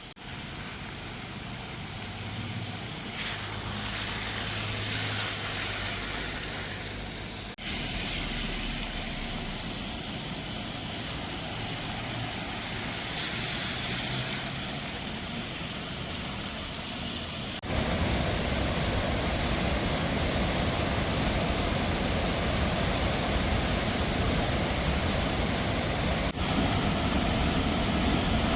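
Steady rushing noise of a swollen, flood-stage river, with no speech. It gets abruptly louder twice, about a third of the way in and again past the middle.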